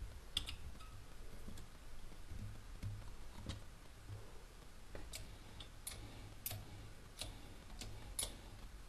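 A series of light, sharp clicks and taps, about a dozen at irregular intervals, growing more frequent in the second half, over a faint low hum.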